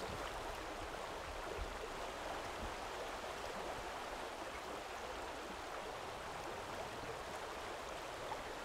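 Small rocky stream running steadily over riffles and little cascades, a constant even rush of water.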